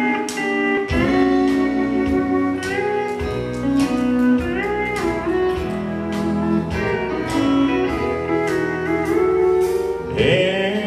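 Country band playing a slow instrumental intro live: a steel guitar carries the melody, sliding between notes, over bass, guitars and a steady drum beat.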